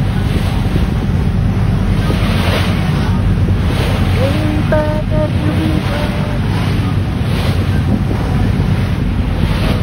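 Wind buffeting the microphone over the rushing wash of a choppy sea, with a steady low rumble. A few short pitched calls come through about halfway.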